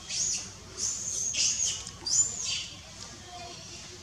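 Baby macaque giving high-pitched squeaky cries, about four short calls that each rise and fall, bunched in the first half.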